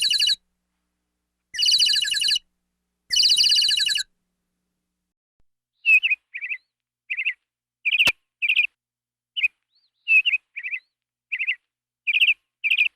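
Bird calls: three buzzy trills about a second long, then after a pause a run of short separate chirps, with one sharp click just after the middle.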